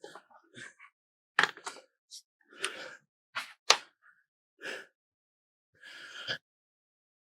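Camera handling noise as it is set onto a tripod: a string of short clicks, knocks and rustles, with two sharper clicks about a second and a half and nearly four seconds in.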